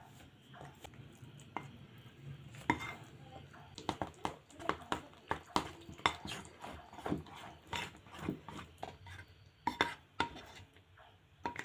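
A metal spoon stirring thick flour batter in a ceramic plate, clinking and scraping against the plate in quick, irregular strokes, several a second, starting a few seconds in.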